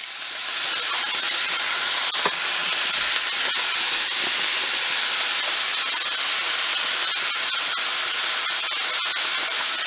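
Ground venison and onions sizzling steadily as they brown in a nonstick skillet; the sizzle swells over the first second and then holds even.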